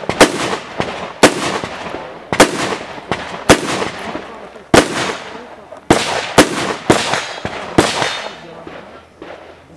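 Rifle shots fired in a string, at first about one a second, then faster, about two a second, between six and eight seconds in. Each sharp crack trails off in an echo.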